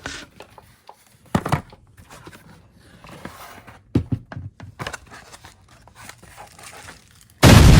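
Packaging of a rotary tool kit being opened and handled: scattered rustling, crinkling and small knocks. Near the end a sudden, very loud burst of noise sets in and keeps going.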